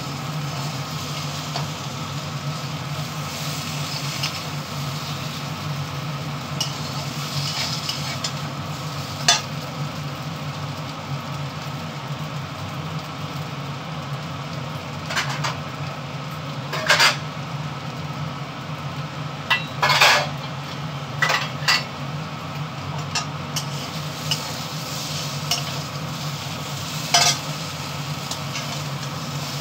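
Pointed gourd (parwal) frying in a steel kadhai with a steady sizzle, stirred with a metal spatula that gives several sharp scrapes and clinks against the pan. A low steady hum runs underneath.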